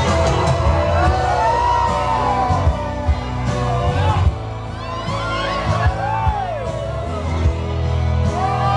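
Pop song playing loud over a disco sound system, with a dancing crowd singing along, whooping and shouting.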